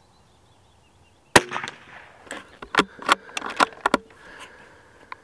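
A single .22 LR rifle shot from a RETAY Sporter bolt-action rifle about a second and a half in. It is followed by a quick series of sharp metallic clicks and clacks as the bolt is worked.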